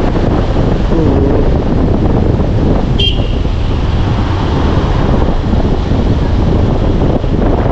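Motorcycle being ridden at road speed: steady wind rush on the camera microphone over the engine running. A brief sharp click with a short high tone about three seconds in.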